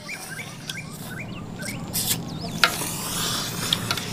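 Thick noodles being eaten close to the microphone: wet chewing and smacking with small clicks, then a hissing slurp about three seconds in.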